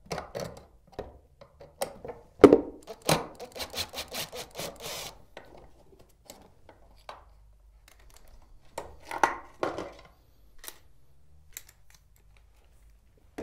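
Clicks, knocks and a quick run of sharp ticks as a screw gun takes out the screws holding spiral window balances at the top of a tilt-window frame, then a rubbing scrape about nine seconds in as a balance is worked out of the jamb.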